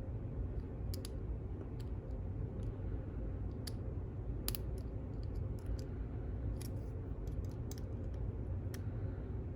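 Scattered light metallic clicks and taps of small hand tools handled against a padlock, at irregular intervals over a steady low hum.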